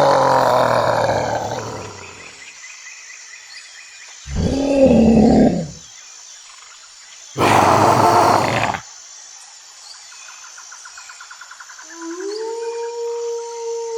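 A series of separate recorded animal calls: a long roar that falls in pitch, a shorter call with a rising-then-falling pitch, a brief harsh call, then a steady, held howl that begins near the end.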